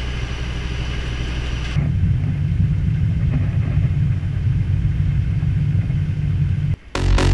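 A boat's engine drones steadily in the cabin. About two seconds in, it gives way abruptly to a louder, deeper rumble.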